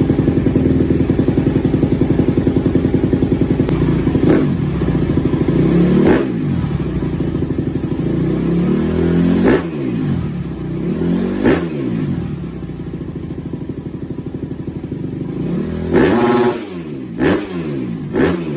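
Single-cylinder four-stroke 250cc motocross bike with an aftermarket exhaust, idling fast and then revved in a series of sharp throttle blips. Each blip rises and falls quickly in pitch, about seven in all, with the later ones coming close together.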